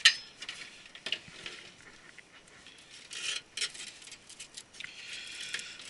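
Hands working inside a computer server case: scattered sharp clicks and short rustles and rubbing of cables and parts being moved, with the strongest click at the very start.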